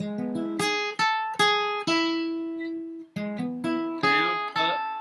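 Flatpicked steel-string acoustic guitar playing a bluegrass lick twice: a quick run of picked notes, the first run ending on a note left ringing for about a second, then the run again.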